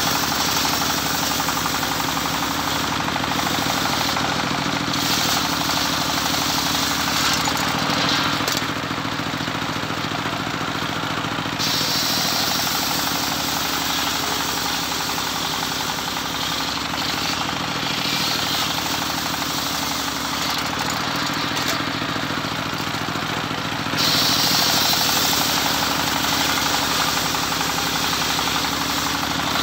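Engine-driven homemade circular sawmill running at steady speed while sawing teak. The high whine of the blade shifts in strength every few seconds as the cut goes on, and grows louder near the end.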